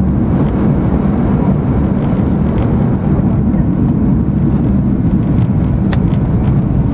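Steady low rumble of an E2 series Shinkansen running at high speed, heard from inside the passenger cabin, with a single sharp click about six seconds in.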